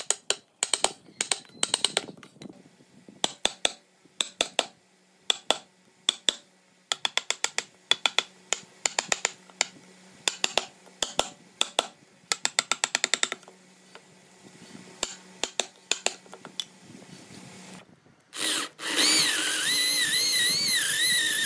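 A steel wood chisel being struck in quick bursts of sharp, clinking blows, chopping a pocket out of a hardwood slab. About eighteen seconds in, an electric drill starts up and runs continuously as it bores into the wood, its whine wavering as the load changes.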